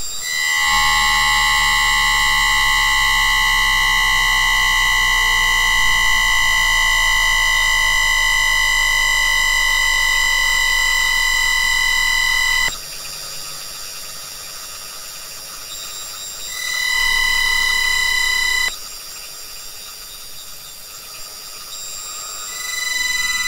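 Pickup-coil recording of a Class 333 EMU's Siemens SIBAS 32 IGBT VVVF traction inverter: a steady whine from its 1 kHz asynchronous PWM carrier, with tones around 2, 3 and 4 kHz. It cuts off about halfway, returns briefly a few seconds later, and starts again near the end.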